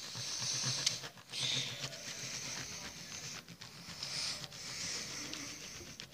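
Pocket knife's small saw blade sawing back and forth through a balled-up piece of material, a rasping scrape in long strokes of about a second each with brief pauses between.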